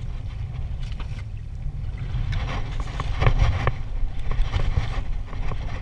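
Wind rumbling on the microphone aboard a small boat in a choppy sea, with water sloshing and a few light clicks and knocks from handling the rod and reel, most of them about halfway through.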